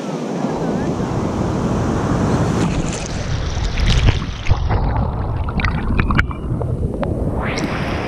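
Ocean surf washing in over a camera sitting at the waterline. From about three seconds in the sound turns muffled and bubbly, with scattered pops, while the lens is under the swirling water. Near the end the open hiss of the breaking wash returns.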